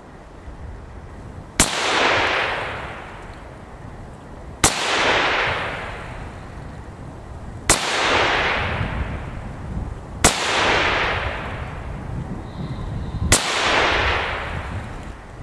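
Five single shots from a CZ 512 semi-automatic rifle in .22 WMR (.22 Winchester Magnum Rimfire), fired one at a time about three seconds apart. Each sharp crack trails off over about a second.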